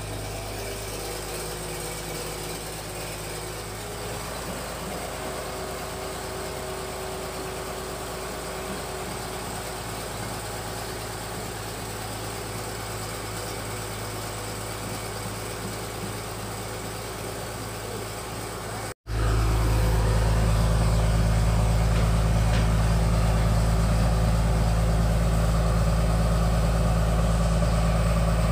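Fish-feed pellet machine running with a steady mechanical drone. About two-thirds of the way through, the sound drops out for an instant and comes back louder, with a stronger low hum.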